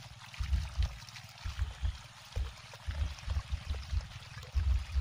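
Water from a hose jetting down inside a 1.5-inch pipe as the pipe is jabbed into wet ground, gurgling and splashing out the top with washed-up sand. Dull low thuds come one or two times a second, irregularly.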